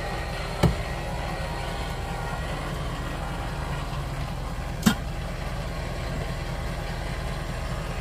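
Ford F-450 pickup's engine idling steadily, with two sharp clicks, one under a second in and one about five seconds in.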